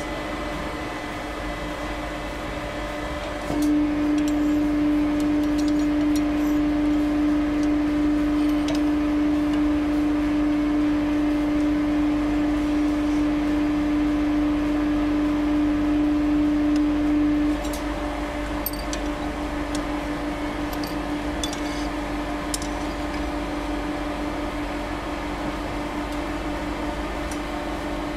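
Hydraulic press's electric pump motor humming at a steady pitch. About four seconds in the hum gets much louder and stronger, then drops back to the quieter hum some fourteen seconds later. A few light metal clinks are heard along the way.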